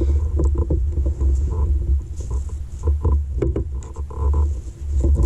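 Handling noise on a fishing kayak: scattered knocks, clicks and small splashes over a steady low rumble on the camera microphone, as a smallmouth bass is held by its bottom lip.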